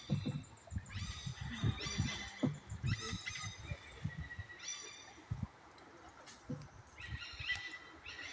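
A high, squeaky call with many overtones, repeated roughly once a second, over irregular low knocks and water sounds from a paddled wooden boat.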